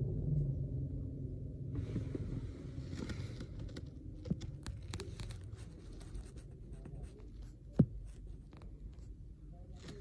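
Stick arc welding: an irregular crackle and spitting of the arc with scattered sharp clicks, over a low rumble that fades in the first second or two. A single sharp knock stands out late on.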